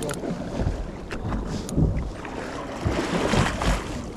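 Wind rumbling on the microphone and water moving around a small fishing boat at sea, with a few brief knocks and clicks.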